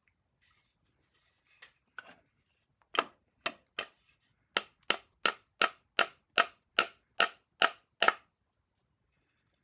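Rosewood chair-rim sections being tapped together at a wedged-nail tenon joint, driven in until the joint bottoms out. A few faint taps come first, then a steady run of about a dozen sharp knocks, roughly three a second, that stops near the end.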